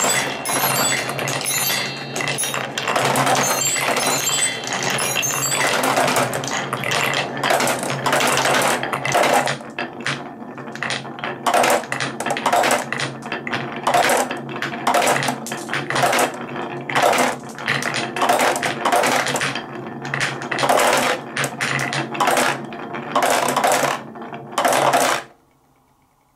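Glass marbles rolling and clattering through a wooden Quadrilla marble run, a dense continuous rattle at first that thins into single clinks every half second or so as marbles drop one by one into a clear plastic jar shaped like a toy car. The clatter stops suddenly near the end.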